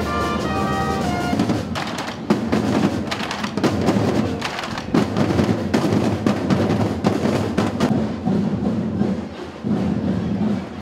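Music: a melodic line of held notes, then from about a second and a half in, dense, heavy drumming with many strokes.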